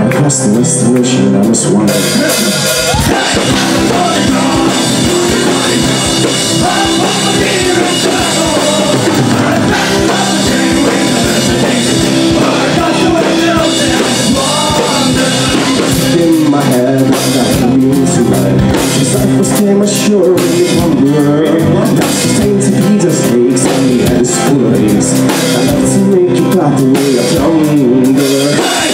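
Celtic folk-rock band playing live, loud: acoustic and electric guitars over a drum kit, with the drums coming in about three seconds in.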